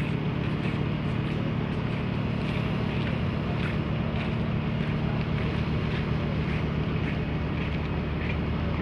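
Steady low hum of a ship's engine, with light wind on the microphone.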